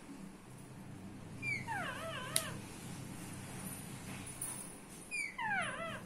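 Rose-ringed parakeets giving two falling, wavering calls, about four seconds apart, with a single sharp click at the end of the first.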